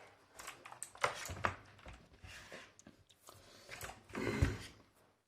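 Plastic clicks and knocks from a mechanical keyboard and its wrist rest being handled and pressed together. A longer rustle with a low thump comes about four seconds in.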